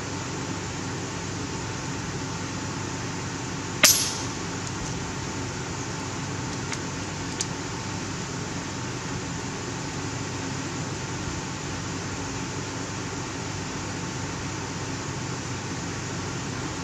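A single sharp shot from a .30-calibre FX Impact PCP air rifle about four seconds in, followed about three seconds later by two faint clicks, over a steady background hiss.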